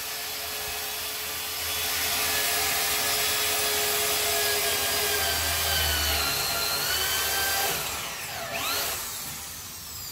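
Power drill running against the aluminium ceiling track of a balcony glazing system, its pitch shifting as it works. It eases off about eight seconds in, gives a quick rise in pitch, then fades.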